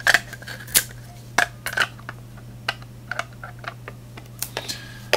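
Plastic lid of a Now TV streaming box being pressed and fitted onto its plastic case by hand: a run of irregular sharp clicks and taps.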